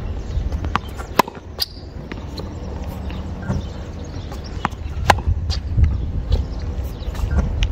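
Tennis ball being hit with a racket and bouncing on the court during ball-machine practice: a few sharp knocks a few seconds apart, the loudest about a second in and about five seconds in, over a steady low rumble.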